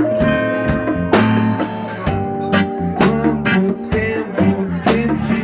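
A live band playing: electric guitar and bass over a drum kit keeping a steady beat.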